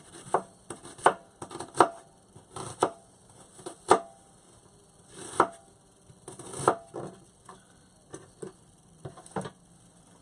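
Kitchen knife chopping sweet Vidalia onions on a cutting board: separate sharp knocks at an uneven pace, about one or two a second.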